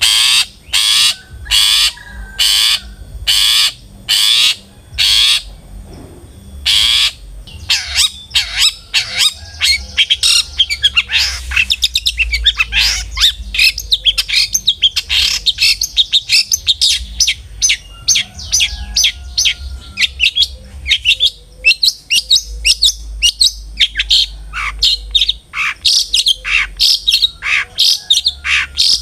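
Long-tailed shrike (cendet) calling. A series of harsh rasping calls comes about once a second for the first seven seconds, then gives way to a rapid run of varied, sharp chattering notes.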